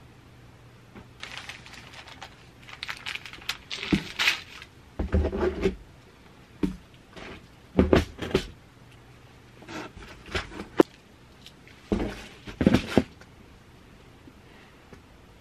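Things being handled and set down: irregular knocks, clicks, rustles and light clatter, with a sharp click a little before the eleventh second.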